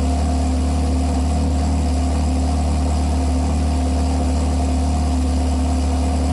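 Ferrari 360's V8 running steadily through an MS-Racing aftermarket exhaust, with a loud, deep exhaust note that holds one pitch without revving.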